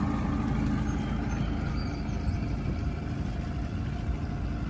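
Boat's outboard motor running steadily while the boat is under way, heard as an even low drone.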